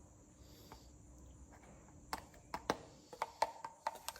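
Handling noise: an irregular run of light clicks and small metallic taps starting about halfway through, a few of them ringing briefly, with no drill running.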